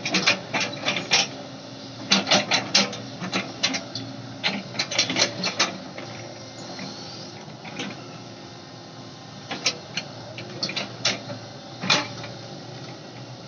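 Excavator at work: a steady engine hum under bursts of sharp metallic clanks and knocks coming several a second, with pauses between the bursts.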